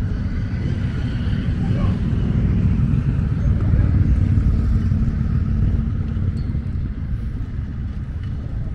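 Outdoor street ambience of a low, steady rumble from traffic on the road alongside, mixed with wind on the microphone, swelling a little midway as a car passes.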